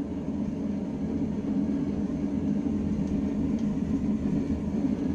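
Blacksmith's forge running with a steady low roar, unbroken and without hammer strikes.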